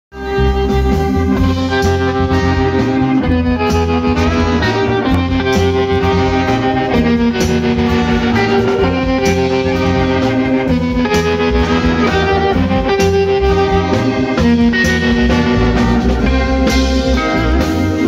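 Live band playing: saxophone and trombone play a melody in long held notes over keyboard, guitar and drums keeping a steady beat. The music starts abruptly about half a second in.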